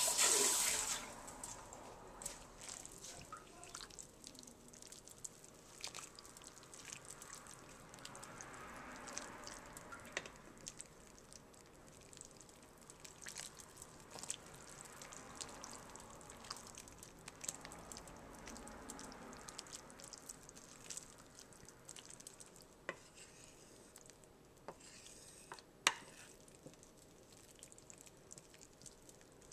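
Wooden spoon stirring tortilla strips into chicken soup in a slow cooker: soft wet swishing with light clicks of the spoon against the pot, and one sharper click near the end. A brief loud rush at the very start.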